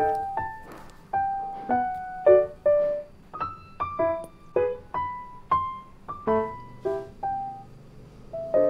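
Background piano music: a gentle melody of separate notes, each struck and left to fade, a few to the second.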